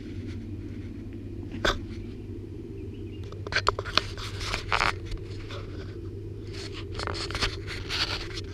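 A young caracal and a spotted leopard cub play-fighting close up. Several short bursts of hissing and scuffling come through, the busiest cluster about three and a half to five seconds in and another near the end, over a steady low rumble.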